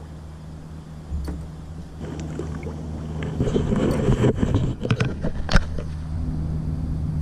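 Handling sounds from a canoe as a caught bass is leaned over the side and put back in the water: irregular rustling and knocks over a low steady hum, with one sharp knock about five and a half seconds in.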